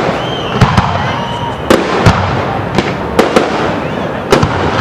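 Aerial fireworks display: about eight sharp bangs of bursting shells at irregular intervals, with a high whistle in the first second.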